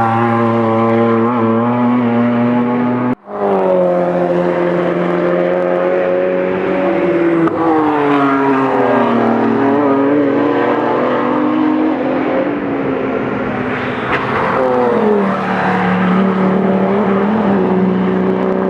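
Car engine running hard on a race track, with a steady engine note, then a brief total cut in the sound about three seconds in, after which the note changes pitch and slowly eases down and shifts for the rest of the stretch.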